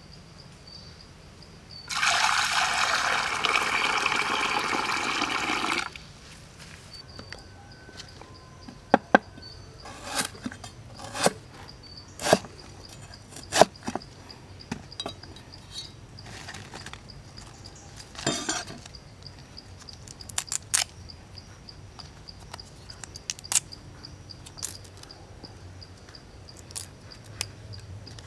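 Water poured into a pot for about four seconds, then a cleaver chopping galangal on a wooden chopping board in a series of sharp knocks. Insects chirr faintly throughout.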